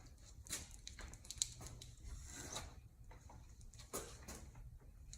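Faint, scattered knocks and clicks of a Minn Kota Ultrex trolling motor being lifted off its mount and handled.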